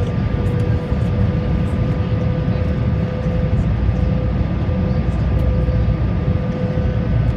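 Steady cabin noise inside an Airbus A321 in flight: a low, even rush of airflow and engine noise with a steady hum running through it.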